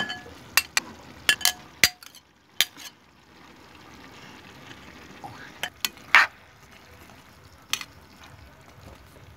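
Spoon clinking and scraping against a ceramic bowl as sliced okra is tipped into a hot frying pan, several clinks with a short ring, then a low steady sizzle of the vegetables frying, broken by a few knocks of the spoon on the pan.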